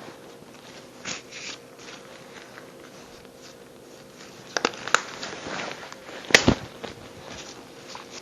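A few separate light knocks and clicks of small objects being handled on a workbench, the loudest about six and a half seconds in, over a faint steady hum.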